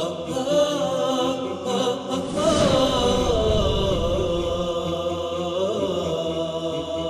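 Opening theme music of a TV programme: voices chanting a melodic vocal song.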